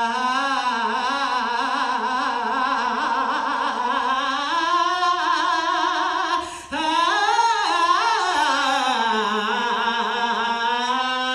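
A woman's amplified voice singing long sustained notes with a wide vibrato, with no words picked out, breaking off briefly for a breath about six and a half seconds in.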